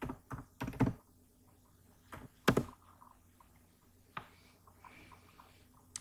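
Computer keyboard typing: a few quick keystrokes in the first second, one heavier key press about two and a half seconds in, and a lighter click just after four seconds.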